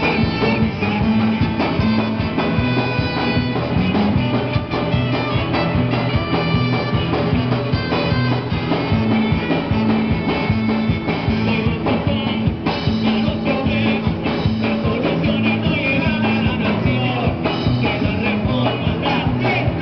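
Live band playing a song: keyboard, electric guitars, trumpet and trombone over a steady bass line, with the high end getting brighter about two-thirds of the way through.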